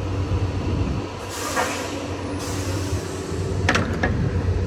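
Rear swing-door lock on a Wabash semi-trailer being worked by hand: a scraping rustle, then sharp metal clanks near the end as the lock-rod handle is swung into its keeper. A low truck rumble underneath fades out about a second in.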